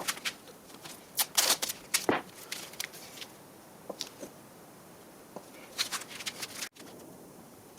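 Workshop handling noises: a few light knocks and clicks with short scraping rustles, as wooden pieces are picked up, moved and set down.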